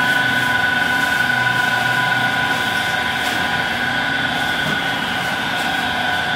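Steady drone of bakery machinery, a constant high whine over a low hum, with no change in pitch or speed.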